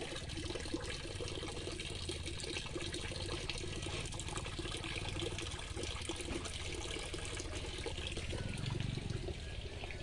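A thin stream of water from a hose pouring steadily into a shallow concrete tank, splashing on the water's surface.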